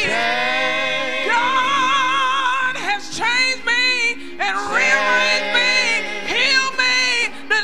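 Church praise team singing a slow song into microphones: several voices hold long, wavering notes in phrases, with short breaks between phrases about three seconds in and again around four and a half seconds in.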